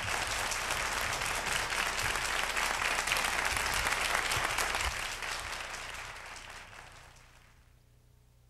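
Studio audience applauding at the end of a song, dying away from about five seconds in to near silence.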